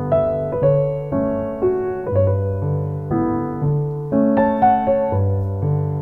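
Background piano music: a melody of struck notes over held bass notes.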